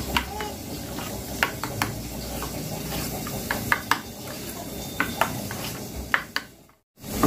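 A steel spoon stirring a thick spice paste in a small steel bowl, clicking and scraping against the metal again and again over a steady hiss. It fades out near the end.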